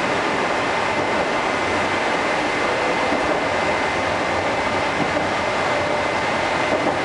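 Interior of a Moscow Metro 81-765/766/767 'Moskva' train car running between stations: a steady rush of running noise with a faint, steady high tone.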